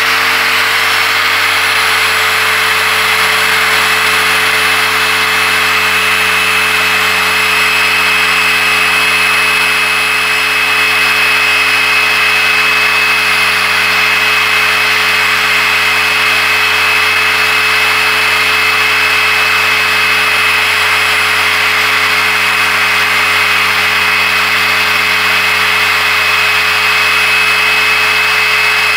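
Electric drill running steadily under load, its bit boring into a wooden hatchet handle. A constant whine with no pauses or changes in speed.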